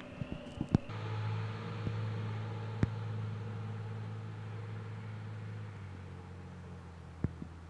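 A steady low mechanical hum, like a motor or engine running, comes on suddenly about a second in and slowly fades. A few sharp clicks come near the start, and single clicks come later on.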